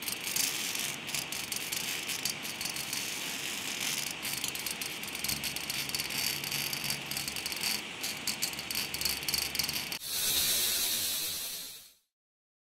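Sound effect of crackling, sizzling sparks with rapid irregular clicks over a hiss, as a laser beam draws a logo. At about ten seconds it changes to a smooth hissing swell that fades out about two seconds later.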